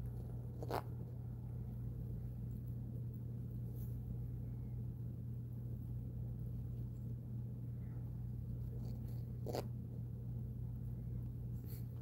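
Quiet room tone: a steady low hum, broken by a sharp click about a second in and another near the end.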